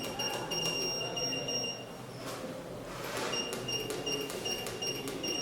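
ATSS Active 207 burglar alarm keypad's buzzer beeping at one high pitch in a quick, broken on-off pattern, in two stretches of about two seconds with a pause between, along with a few soft clicks of keys being pressed as zone passwords are keyed in to disarm the zones.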